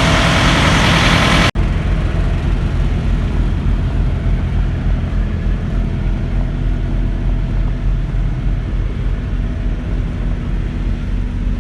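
Semi-truck's diesel engine idling with a steady low hum. About a second and a half in, a louder, hissier stretch cuts off abruptly and the plain idle continues.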